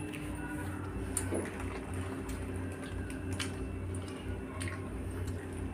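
Bread pizza frying in a pan, faint sizzling with scattered small crackles and ticks over a steady low hum.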